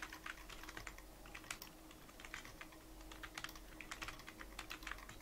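Typing on a computer keyboard: a run of irregular key clicks, several a second, over a faint steady hum.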